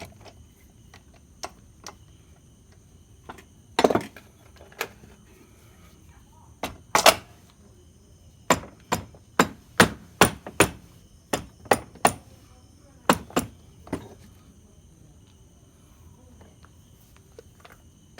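Sharp knocks of a mallet tapping the Yamaha two-stroke engine's crankcase halves together, seating the joint on its thin bead of sealant with no gasket. A few scattered blows come first, then a steady run of about two a second, and the knocking trails off about fourteen seconds in.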